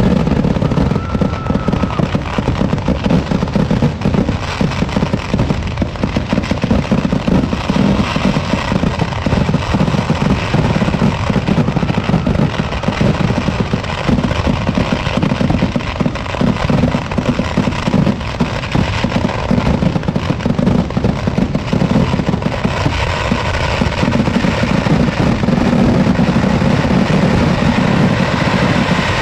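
Kerala temple-festival fireworks (vedikkettu) exploding in a dense, unbroken barrage: firecrackers and shells going off so rapidly that the bangs run together without a break.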